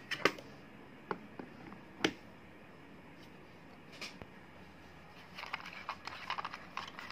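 Light clicks and knocks of a metal phone-holder stand and its clamp being handled on a table: a few single sharp clicks in the first two seconds, then a quick run of small clicks and rattles near the end.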